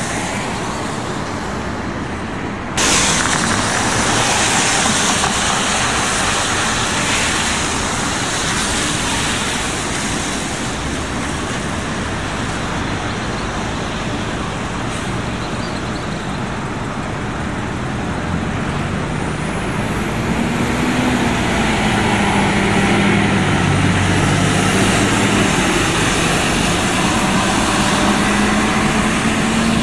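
Transit buses running in a depot. About three seconds in, a sudden loud air hiss, typical of a bus's air brakes releasing, fades over several seconds. Later a bus engine's drone rises and falls in pitch as a bus pulls away, with a faint high whine over it.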